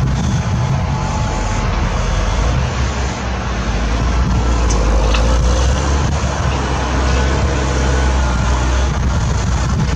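CAT 160M motor grader's diesel engine running steadily under load as the grader plows deep snow: a deep, even drone.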